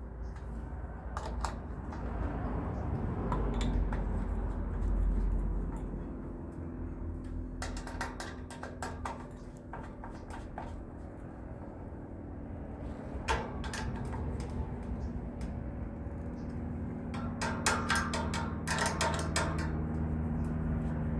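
Screws being tightened into a box fan's metal housing with a screwdriver: three spells of quick small clicks and scrapes over a steady low hum.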